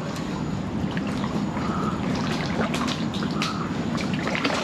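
Kayak paddling: paddle blades stroking through the water and water trickling off them, with scattered light clicks.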